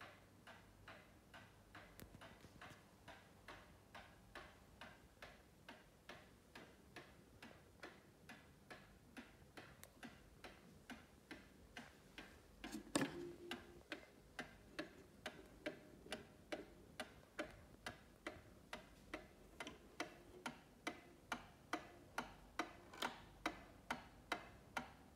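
Antique Waterbury steeple mantel clock ticking steadily, about two ticks a second, the ticks growing louder toward the end. One louder knock comes about halfway through.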